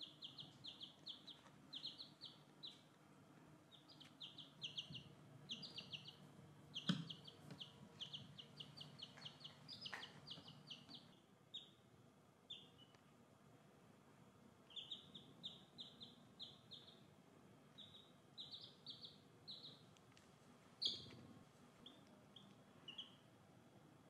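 Baby chicks peeping: quick runs of short, high peeps with brief pauses between runs. Two soft knocks come partway through.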